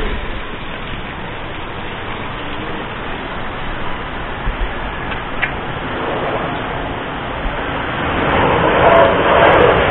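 Steady outdoor background noise with no distinct events, swelling louder about eight seconds in.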